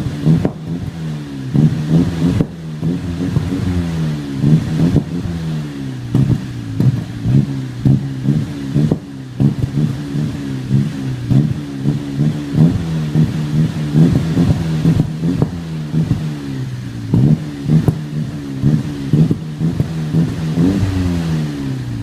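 Saab 9-3 2.0-litre turbo four-cylinder with a Magnaflow 14816 sport exhaust, revs rising and falling again and again. Many sharp pops from the exhaust throughout.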